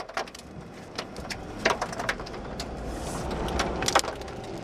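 A car heard from inside the cabin, pulling away, its engine and road rumble building from about a second in. Irregular sharp ticks of rain strike the windshield and body throughout.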